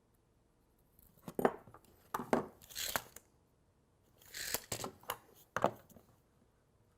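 Parts being handled on a workbench: a few short knocks mixed with rustling and sliding noises, in four brief bursts with quiet between them.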